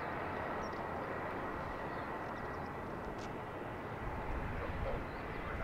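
Distant Boeing 737-800's CFM56-7B jet engines running at taxi power: a steady hiss with a faint high whine, and a low rumble that grows about four seconds in.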